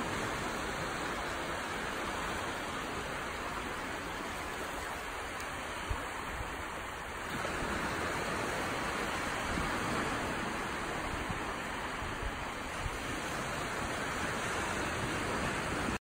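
Gentle surf washing in shallow sheets over a flat sandy beach: a steady rush of small waves that grows a little louder about seven seconds in.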